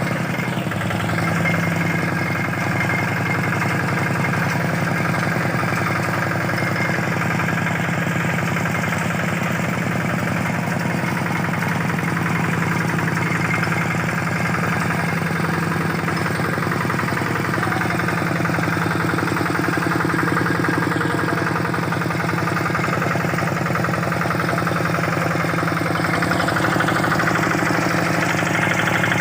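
Single-cylinder Kubota RD65 diesel engine of a Quick G600 two-wheel hand tractor running steadily.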